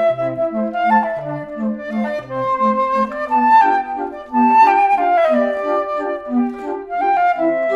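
Instrumental background music: a woodwind-like lead melody, with a few sliding notes, over a steady, bouncing line of short low notes.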